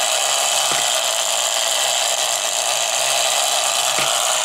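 Plastic gear train of a da Vinci helicopter model kit whirring steadily as its counterweight unwinds and spins the rotor.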